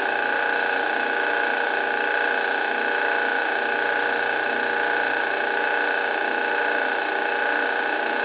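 Drill press running steadily with a carbide bit boring into a steel pistol slide, a steady high whine throughout.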